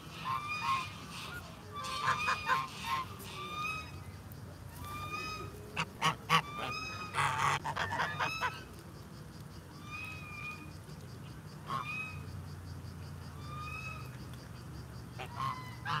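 Domestic geese honking over and over while swimming: short calls, often in quick runs, with a louder, denser flurry of honks around the middle.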